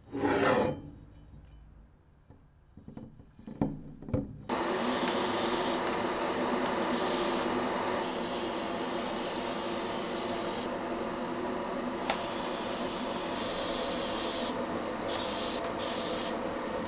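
A few short scrapes and clicks, then, about four seconds in, a power tool starts abrading a part with a steady rasping and a steady motor hum underneath.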